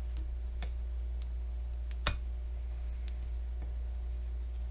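Scattered light clicks and taps of small metal outboard water-pump parts being handled, the loudest about two seconds in, over a steady low hum.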